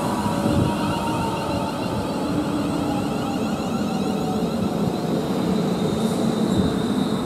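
British Rail Class 360 Desiro electric multiple unit moving slowly along the platform: the whine of its electric traction equipment, several faint tones that glide slowly, over a steady rumble of wheels on the rails.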